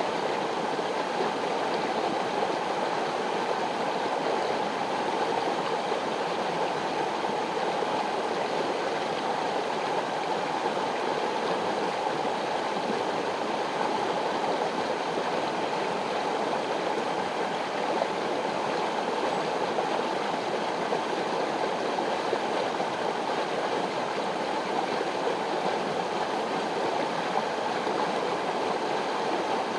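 Mountain river rushing over rocks: a steady, even water noise.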